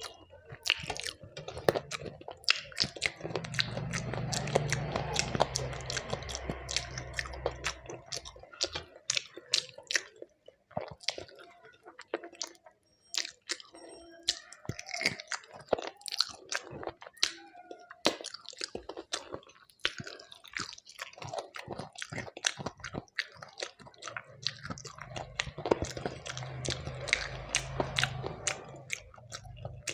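A person chewing and biting food close to the microphone: many sharp, wet mouth clicks and smacks, with occasional crunches. A low rumbling sound comes in for several seconds about two seconds in and again near the end.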